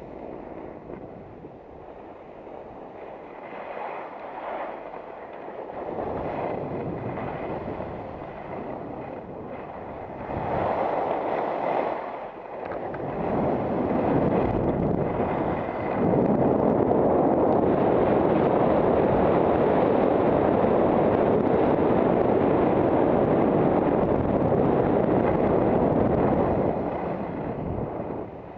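Rushing wind on the microphone mixed with the hiss and scrape of skis on packed snow during a downhill run. It builds in stages, is loudest and steady over the second half, then falls away near the end as the skier slows to a stop.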